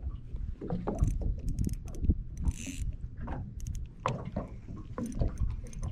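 Spinning reel being wound to retrieve a soft-plastic lure: irregular small mechanical clicks and knocks over a steady low rumble, with a short hiss about two and a half seconds in.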